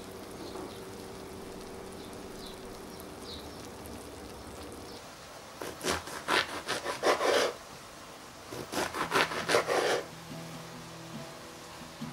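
Two runs of quick rasping strokes, a knife sawing through onion on a cutting board, the first about halfway in and the second a second later.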